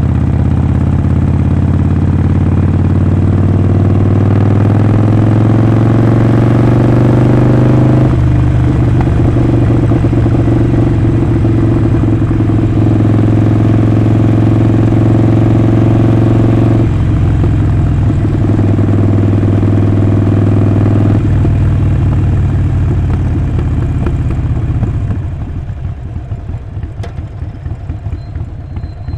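Harley-Davidson Sportster Forty-Eight's 1200 cc air-cooled V-twin on the move. It pulls up in pitch for several seconds, then shifts up and holds a steady cruising note, with two more changes in engine note. Near the end the throttle eases off and the engine gets quieter.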